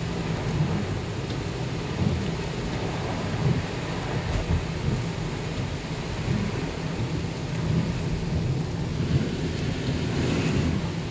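Steady low rumble inside a moving car's cabin: the car driving on a wet, flooded road, with rain on the car. There is a brief louder hiss near the end.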